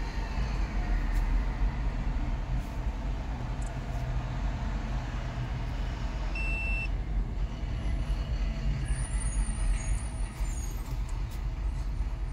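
Steady low engine rumble of a nearby idling vehicle, with one short high electronic beep about six and a half seconds in.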